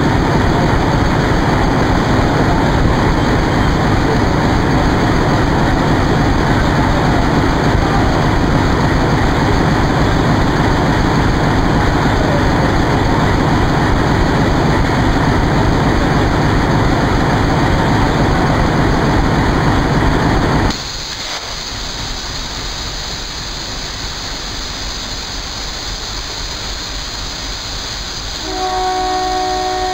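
WDP3A ALCO diesel locomotive's engine idling with a loud, steady rumble. About two-thirds of the way through, the sound drops abruptly to a quieter steady engine noise. Near the end the locomotive's horn starts: a steady chord-like honk, the departure signal.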